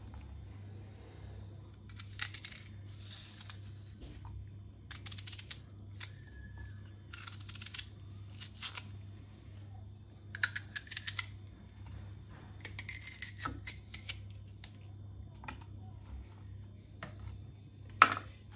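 Small kitchen knife slicing a raw onion into rings: a short crisp crunch with each cut, coming irregularly every second or two, over a low steady hum.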